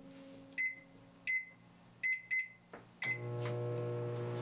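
Microwave oven keypad being pressed, five short high beeps with button clicks, then the oven starts about three seconds in and runs with a steady hum.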